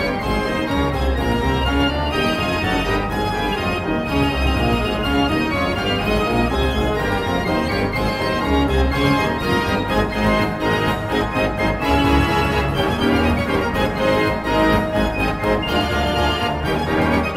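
Fair organ playing a tune, with many pipe voices over a recurring bass beat.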